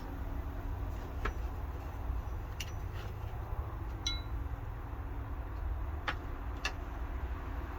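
Scattered light clicks and clinks of Glock pistol parts handled during cleaning, about six in all, one near the middle ringing briefly like struck metal, over a steady low rumble.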